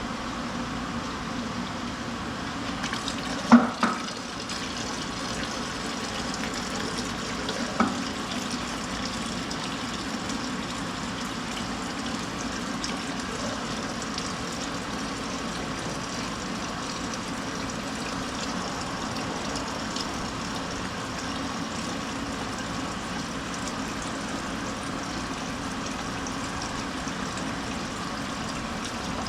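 Steady stream of engine oil draining from the Honda FD2's sump into a drain container, with two short metallic clinks, about three and a half and eight seconds in.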